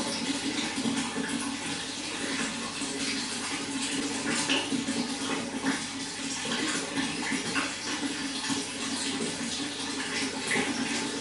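Running water flowing steadily, with a continuous rush and many small irregular splashes and gurgles.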